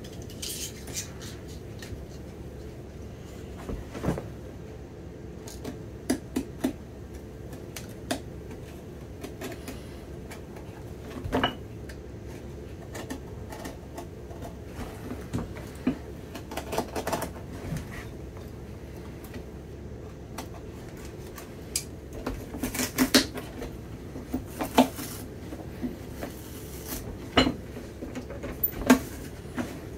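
Old leather half sole being cut and pried off a boot with a utility knife and cobbler's pincers. Scattered clicks, knocks and scrapes of metal tools on leather come in bunches, busiest in the last third, over a steady low hum.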